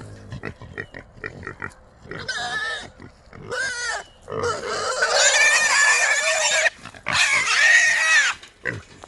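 Trapped feral hogs giving a quick run of short grunts, then squealing loudly four times, the longest squeal lasting about two seconds.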